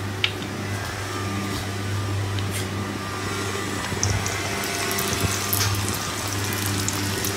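Samosas frying in a pan of hot oil: a steady sizzle with a few small crackles, over a low steady hum.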